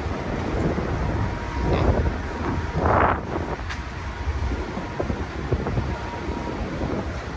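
Steady low rumble of a car ferry under way, heard on its open car deck, with wind buffeting the microphone and a brief louder rush about three seconds in.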